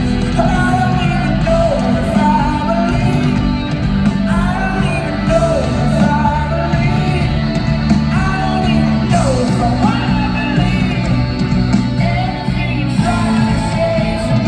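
Live folk-rock band playing, with sustained sung vocal lines over the band.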